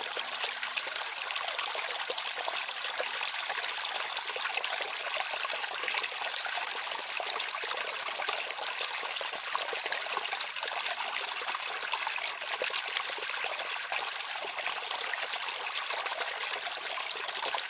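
Water flowing and trickling steadily, a continuous splashy rush with many small bright splashes and little low rumble, like a small stream.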